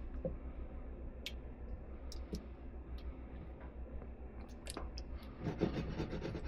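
A spoon scraping and clicking against a baking dish while spreading meat sauce over the bottom: scattered light clicks, with a louder stretch of scraping about five and a half seconds in.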